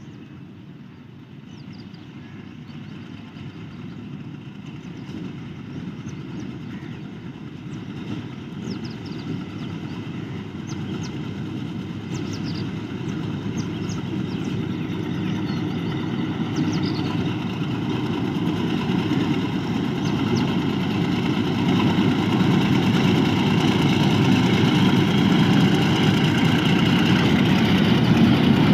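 Diesel-electric locomotive of an HBU-20 class approaching with its engine running, growing steadily louder as it nears.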